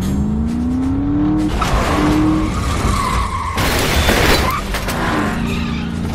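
Car engine revving with a rising pitch, then tyres squealing as the car swerves, and a crash about three and a half seconds in, lasting about a second.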